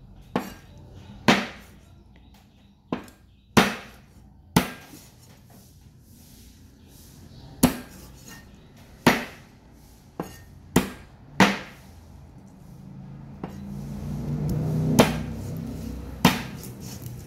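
A meat cleaver chopping bone-in frog into pieces on a round wooden chopping block: about a dozen sharp knocks at irregular gaps of one to three seconds. A low hum swells in the background for a few seconds near the end.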